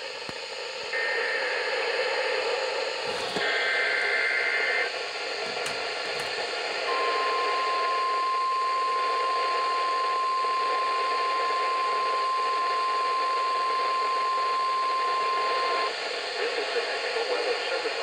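NOAA Weather Radio weekly test through a Midland weather radio's speaker. Short screeching two-tone SAME data header bursts play in the first five seconds, then the steady 1050 Hz warning alert tone holds for about nine seconds before cutting off, over a constant hiss of radio static.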